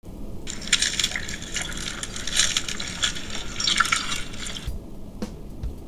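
Spoon breaking through a flaky baked pie crust into a creamy pot-pie filling in a ceramic ramekin: a close crackling crunch for about four seconds that stops suddenly, then a few light clicks.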